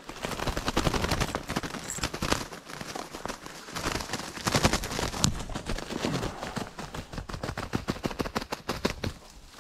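Rapid, irregular crackling and thrashing in leafy brush and ferns, with a few louder snaps among them.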